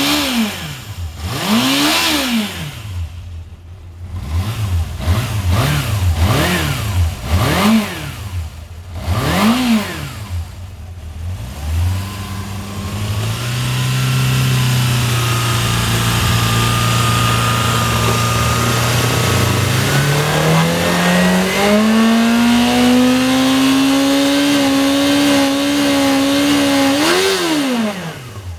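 Honda CBR400F's inline-four engine on its stock exhaust: about eight quick throttle blips, then revs held steady, raised to a higher steady pitch from about twenty seconds in, and let fall near the end. The engine runs with little abnormal mechanical noise.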